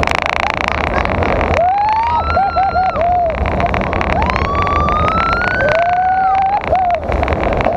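Two riders screaming on a roller coaster: long wavering screams that rise and fall, sometimes two at once, and a quick string of short yelps, over a steady rush of wind and rattling from the ride.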